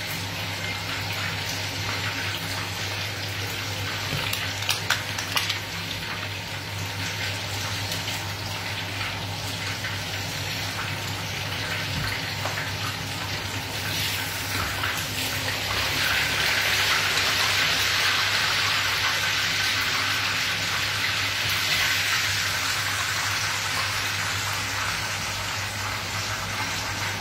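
Breaded chicken cutlets frying in a pan of hot oil, a steady sizzle that grows louder for several seconds past the middle, over a steady low hum.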